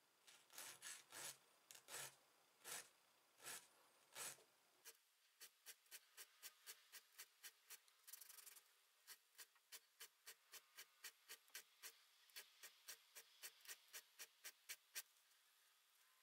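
Hand file scraping the tip of a dull twist drill bit to sharpen its cutting edge. Slower, longer strokes come for the first few seconds, then short quick strokes about three a second.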